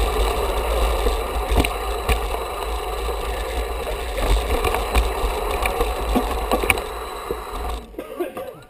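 Mountain bike rolling over a rough dirt trail: wind rumble on the handlebar-mounted camera's microphone with the rattle of the bike and occasional sharp knocks from bumps. The noise drops away abruptly near the end as the bike comes to a stop.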